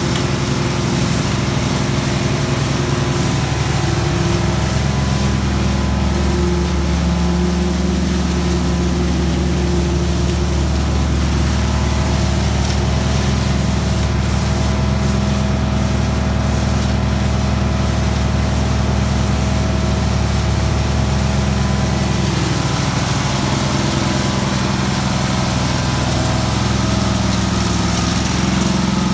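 Engine of a stable-cleaning vacuum machine running steadily under constant load, with a slight change in its note about three-quarters of the way through.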